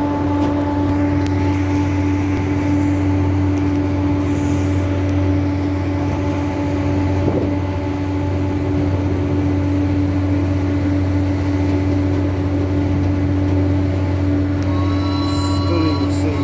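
Schafberg rack railway train running, heard from inside the carriage: a steady low drone with a constant whine over it.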